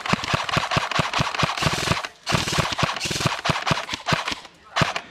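Airsoft rifle firing on full auto in two long, rapid bursts with a brief pause between them, then one more shot near the end.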